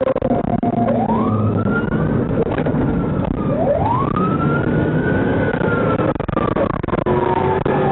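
Police car siren wailing in slow sweeps, rising about a second in, falling, then rising again and sliding slowly down near the end, over the noise of a moving vehicle.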